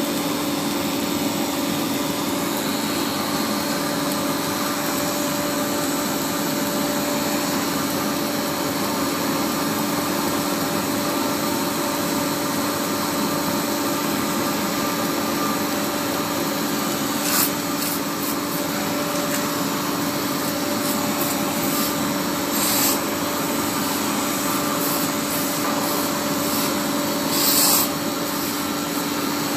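Polygonal pole welding machine running: steady machine noise over a constant hum, with three short hisses in the latter half.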